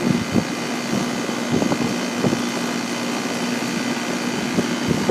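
2001 York central air conditioner's outdoor condensing unit running steadily: compressor hum with the whoosh of the condenser fan, powered by an A.O. Smith fan motor.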